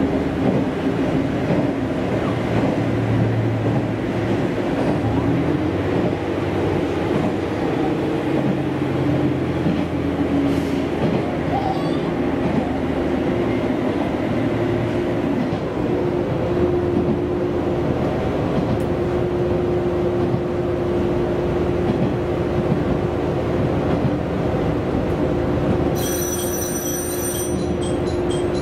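Interior of a diesel railcar running along the line: a steady engine drone with wheel-on-rail rumble. A brief high-pitched repeating tone comes in near the end.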